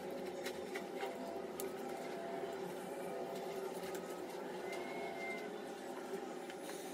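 A steady, low mechanical hum with a few faint clicks in the first couple of seconds.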